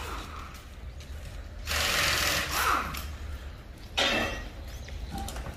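Two short hissing bursts of compressed air from the tyre shop's air line: the first, the loudest, about a second long starting near two seconds in, a shorter one about four seconds in.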